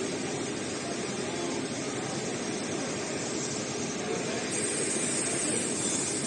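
Steady mechanical running noise of a roll-to-roll heating-wire sewing machine under test, with a thin high whine joining in about four and a half seconds in.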